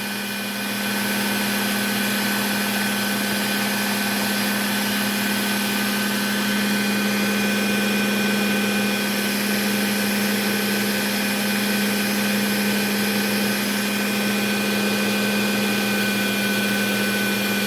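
Work Sharp Ken Onion Edition belt sharpener running steadily, its motor humming and belt whirring as a small whittling knife blade is sharpened on the belt. The sound steps up slightly about a second in.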